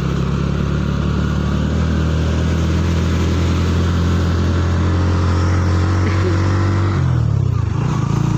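Motorcycle engine running steadily under way, with a constant rush of wind and road noise. About seven seconds in, the engine note drops briefly as the revs fall off.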